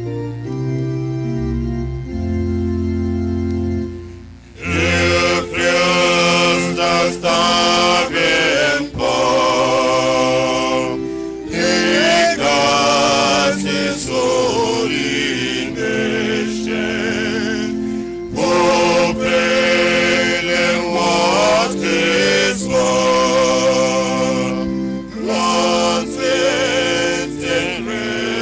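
Electronic organ playing held chords over a low bass. About four and a half seconds in, voices start singing a hymn over it.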